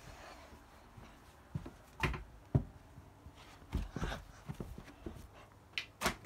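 Irregular soft knocks and rustles of handling: a handheld camera being moved about while plush toys are handled on a carpeted floor, with a sharper knock near the end.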